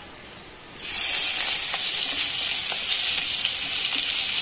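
Finely chopped onions hitting hot mustard oil in a kadhai: after a quiet first second, a sudden loud, steady sizzle with a few faint crackles.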